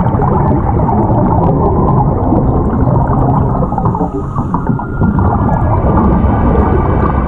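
Underwater sound picked up by a submerged camera: a steady, muffled, low rush of sea water with faint crackles of bubbles.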